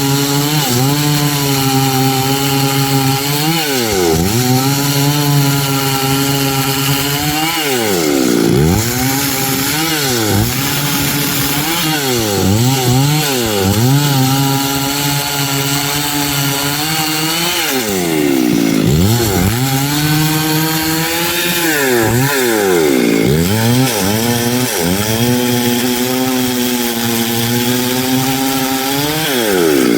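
Stihl MS 382 two-stroke chainsaw with a 24-inch bar running at full throttle as it saws through a big log. The engine holds a steady high pitch, then drops off right at the end as the throttle is released.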